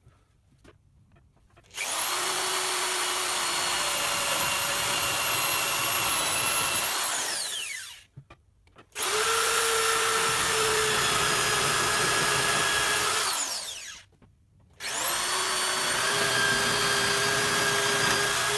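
Power drill with a 20 mm spade bit boring holes through birch plywood: three runs of several seconds each, with short pauses between holes. At the end of each run the motor's whine falls away as the drill winds down.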